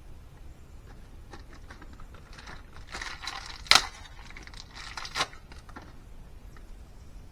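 Small metal parts clicking and clinking while valves are fitted into an LS cylinder head, with light rustling handling noise. Two sharp clinks stand out, nearly four seconds in and again about a second and a half later.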